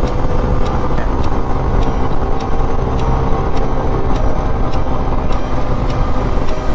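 A TVS Apache RTR 160 4V's single-cylinder engine runs steadily at a cruise of about 100 km/h, under heavy, even wind rumble on the action camera's microphone.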